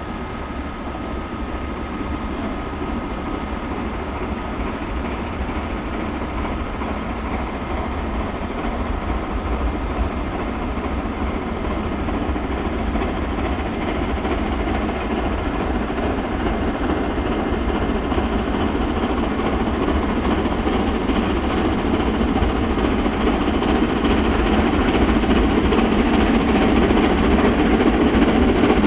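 Steam locomotive hauling a short freight train of box vans, its working exhaust growing steadily louder as it approaches.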